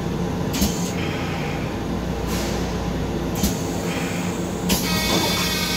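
Running noise of a Long Island Rail Road M7 electric railcar heard inside its restroom: a steady low hum and rumble, with a few brief hisses and a longer hiss with a faint whine starting near the end.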